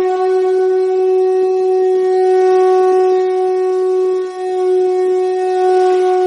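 Music: one long, steady note on a wind instrument, held with a brief dip about four seconds in.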